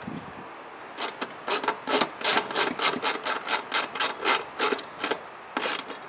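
Hand screwdriver turning screws in to fasten a replacement circuit board in an Atwood propane RV water heater's sheet-metal housing. It makes a quick, fairly regular run of short scraping strokes, about four or five a second, starting about a second in and stopping just before the end.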